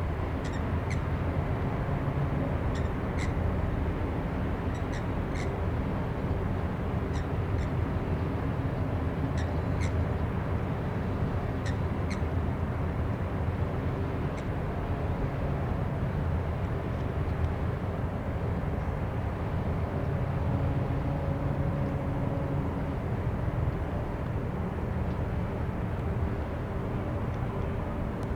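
Low, steady drone of a passing container ship, with short bird calls now and then through the first half.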